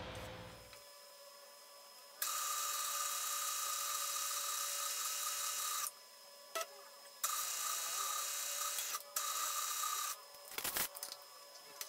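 Small twist drill in a milling machine cutting into a metal block: a loud high-pitched cutting whine in three stretches with short breaks between. A click in the middle break and a sharp knock shortly after the drilling stops.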